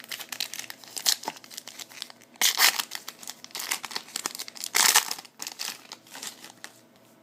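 A foil trading-card pack wrapper crinkling and tearing as it is handled and pulled open, with two louder rips about two and a half and five seconds in.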